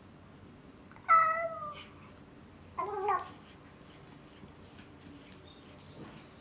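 Domestic cat meowing twice: a longer, slightly falling meow about a second in, then a shorter one near three seconds. These are lonely calls for its owners, who are away downstairs.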